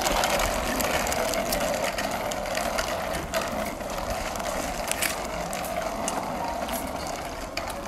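Child's bicycle with plastic stabiliser wheels rolling over rough tarmac: a steady rolling whirr with scattered clicks and rattles.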